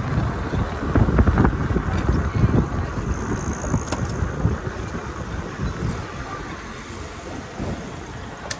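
Street noise heard from a moving bicycle: a gusty low rumble of wind on the microphone mixed with traffic. It grows gradually quieter toward the end.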